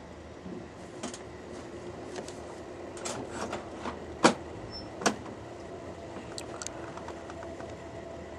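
Steady rumble and hum of a passenger train car riding along the rails, with scattered sharp clicks and knocks; the two loudest come about four and five seconds in.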